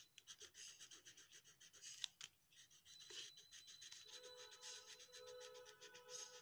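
Crayon rubbing on drawing paper in quick back-and-forth colouring strokes, a faint, fast, even scratching.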